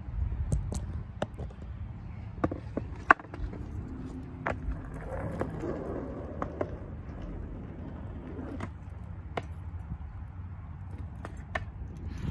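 Skateboard on a concrete path: a steady low rumble of wheels on rough concrete, with scattered sharp clacks.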